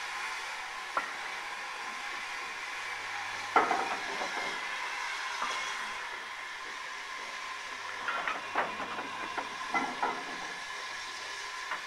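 Steady hiss, with sharp metallic clanks of crane lifting chains and the steel frame they hold. The loudest clank comes about three and a half seconds in, and a cluster of clanks follows near the end.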